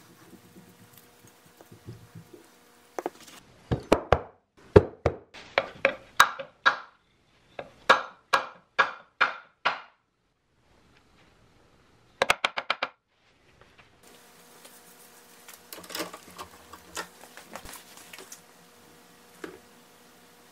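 Hatchet handle knocked down onto a wooden block to drive the head onto it: a series of sharp knocks with a ringing tone, about two or three a second for some seven seconds. A quick flurry of five or so follows about halfway through, then faint handling noise.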